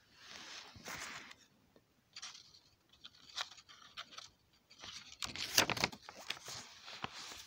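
Paper pages of a picture book rustling and crinkling as they are handled and turned, in several irregular bursts, the loudest crackling about five to six seconds in.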